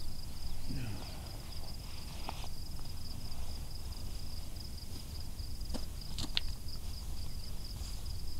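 Insects trilling steadily at a high pitch, with a low rumble underneath and a few faint clicks past the middle.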